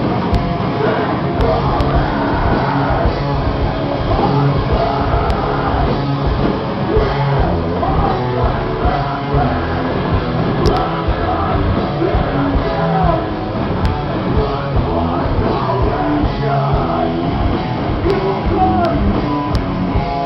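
Rock band playing live on electric guitar, bass guitar and drums, loud and continuous.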